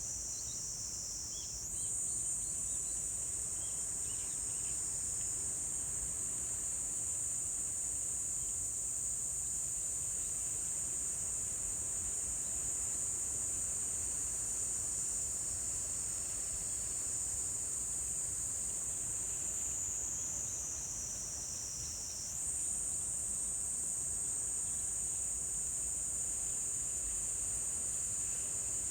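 Insects singing in one continuous high-pitched drone. The pitch sags slightly about twenty seconds in, then jumps back up.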